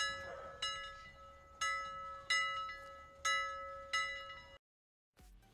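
Bell-like chime tones: six struck, ringing notes in three pairs over a held tone, cutting off suddenly about four and a half seconds in.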